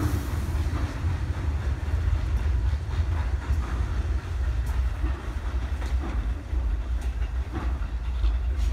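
R68 subway train running on the tracks and moving away, with a steady low rumble and scattered clicks of the wheels over rail joints.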